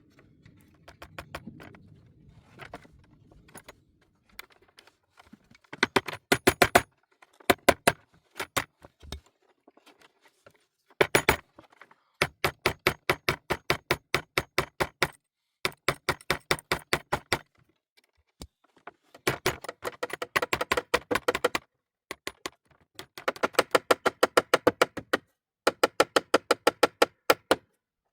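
Rapid, evenly spaced sharp taps, about six or seven a second, in bursts of one to three seconds with short pauses between.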